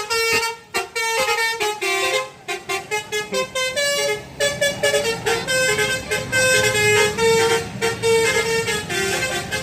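A bus's telolet horn, a Basuri multi-tone air horn, playing a quick melody of short stepped notes. A bus engine rumbles underneath from about three seconds in.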